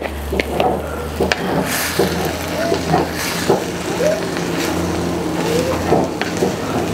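A wooden spatula stirring and knocking in a frying pan of mushrooms and tomato, giving scattered light clicks. A steady low hum runs underneath.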